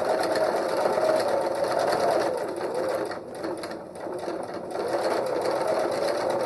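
Electric sewing machine sewing a straight stitch forward: a steady motor whine with rapid needle strokes. It eases off briefly about halfway and then picks up speed again.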